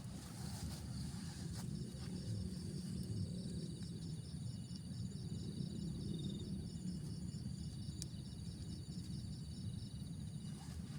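Insect chirping in an even, steady rhythm of about four high pulses a second, over a continuous low rumbling background noise.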